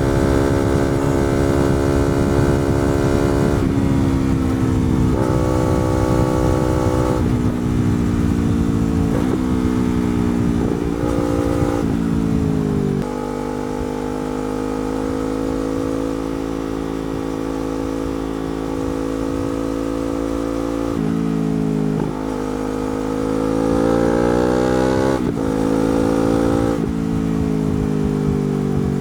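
Yamaha R3's 321 cc parallel-twin engine through a slip-on exhaust, ridden: it runs at high revs, then drops in pitch in several steps as the rider shifts down and slows. It holds steady at lower revs for a while, then revs up again with a couple of upshifts near the end.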